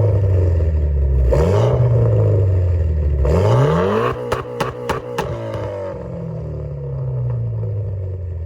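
Mitsubishi Lancer Evo X's turbocharged 2.0-litre four-cylinder revving hard through a muffler-deleted exhaust, climbing three times, the last rev highest. As the revs drop, about four sharp pops crack from the exhaust, then the engine falls back toward idle.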